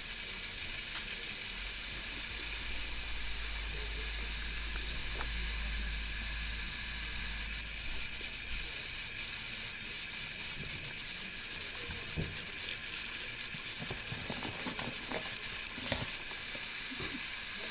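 Steady background hiss with a low rumble from about two seconds in until about nine seconds in. In the second half come scattered soft thumps and taps of kittens scampering and climbing onto a leather pouffe.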